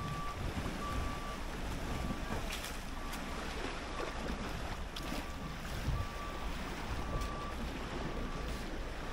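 Small lake waves lapping and splashing against a rocky shoreline, with wind buffeting the microphone. A vehicle's reversing beeper sounds a short steady beep about once a second throughout.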